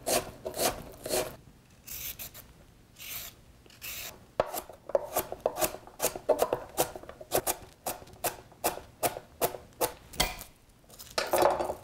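Chef's knife chopping onion and carrot on a wooden cutting board: quick, even strokes of the blade on the board, about four a second. The chopping stops for a couple of seconds after the first second or so, then resumes.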